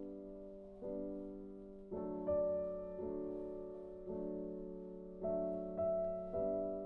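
Soft background piano music: slow chords struck about once a second, each left to ring and fade.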